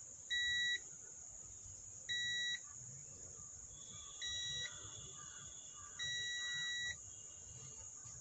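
Digital multimeter's continuity buzzer beeping four times as the test probes touch the legs of the amplifier's output transistors, the fourth beep longer than the others; the meter is set to its buzzer range for checking the transistors.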